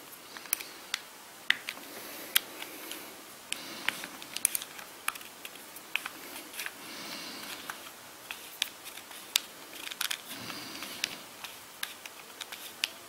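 Irregular small clicks and taps of a hex key working the screws of a polymer AFG-1 style foregrip as it is taken apart, with soft handling of the plastic parts between them.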